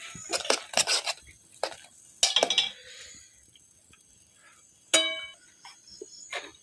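Metal dishes and utensils clinking and clattering, with one sharp ringing clang about five seconds in.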